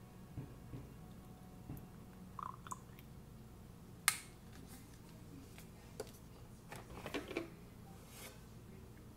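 Quiet handling of paper packaging at a kitchen counter: soft crinkles and small clicks, a sharp click about four seconds in and a short flurry of rustling around seven seconds, over a faint steady low hum.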